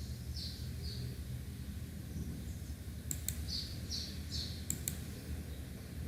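Small birds chirping in short, repeated high notes over a low steady hum, with a few sharp clicks around the middle.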